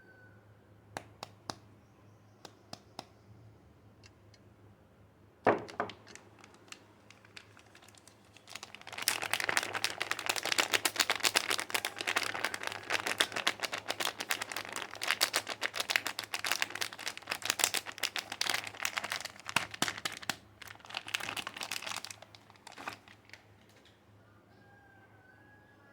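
Soap packaging being unwrapped: a few light taps and one sharp knock about five seconds in, then about thirteen seconds of continuous crinkling and rustling of the wrapper, which tails off into a few clicks.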